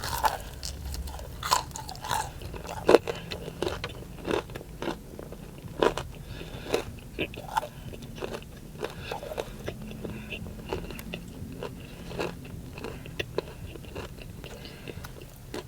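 Biting into and chewing fry-seasoned fried chicken tenders, with irregular crunches of the breading throughout.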